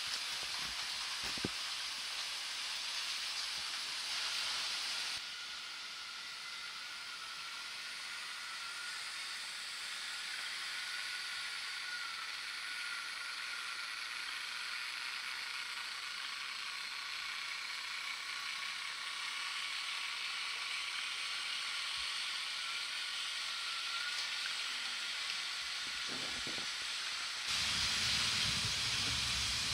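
Model railway trains running on the layout: a steady hiss of wheels on the track with a faint wavering motor whine. It drops a little about five seconds in and gets louder, with a low rumble, near the end.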